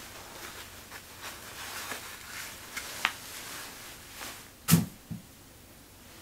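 Crinkling of a paper towel being crumpled and handled, followed near the end by a louder dull thump and a second smaller one as it is thrown.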